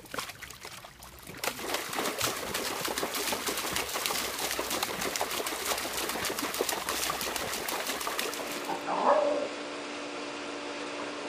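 Water sloshing and splashing hard and without a break as a dog thrashes about in a plastic storage tub of water. Near the end the splashing stops, giving way to a quieter steady background with one brief sharp sound.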